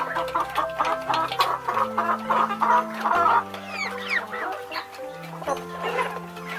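Chickens clucking over background music of held chords.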